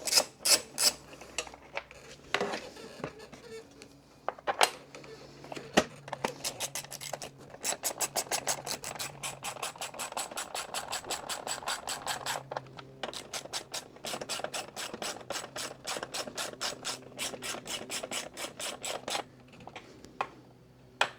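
Ratchet wrench clicking in two long runs of quick, even clicks, about five a second, as a part is tightened back onto the mower; scattered knocks and clatter of handled parts come before.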